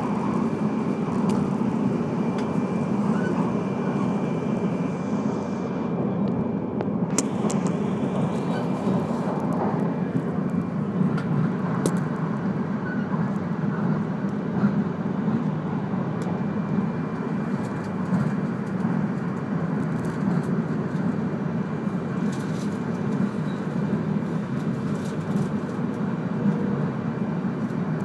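Steady rumble of an E3-series Komachi train running on conventional Ōu Line track, heard from inside the passenger cabin, with a few faint clicks.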